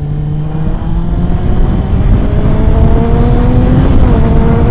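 Kawasaki ZX-9R's inline four-cylinder engine accelerating hard in a lower gear, its note rising steadily and growing louder up toward about 8,000 rpm. There is a brief dip in pitch near the end.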